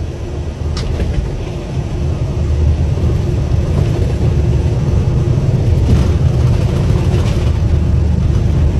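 Steady low rumble of an airliner's engines and airframe, heard from inside the cabin, growing louder over the first few seconds and then holding.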